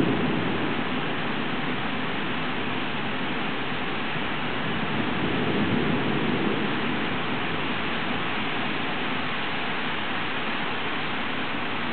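Steady rushing of heavy rain during a thunderstorm, with a brief low swell about five seconds in.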